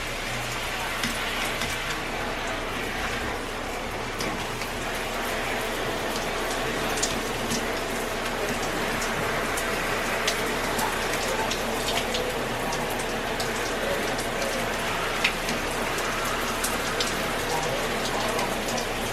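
Shower water running in a steady spray and splashing, with scattered sharp drips and splatters.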